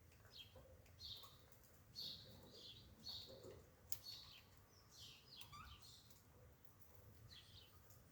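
Faint chirping of small birds, short calls about once a second, over near silence, with one sharp click about halfway through.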